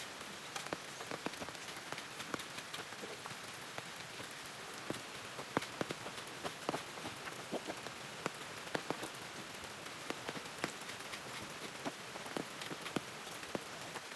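Kitchen knife chopping leafy greens on a wooden cutting board: irregular short taps, several a second, over a steady hiss.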